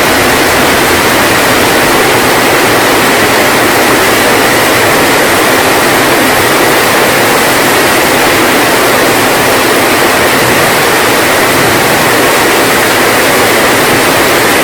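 Heavy rain falling in a downpour, a loud steady hiss.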